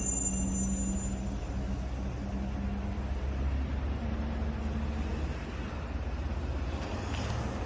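Steady low rumble of a motor vehicle's engine running, with a constant low hum.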